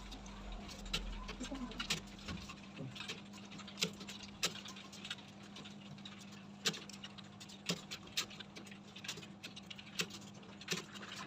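Computer keyboards clicking at an irregular pace as several students type at once during a typing test, over a steady low hum.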